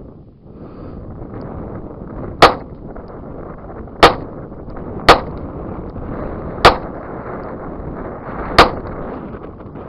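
Charter Arms Undercover .38 Special five-shot revolver fired double action, five single shots at uneven intervals about one to two seconds apart, emptying the cylinder. Steady wind noise on the microphone runs underneath.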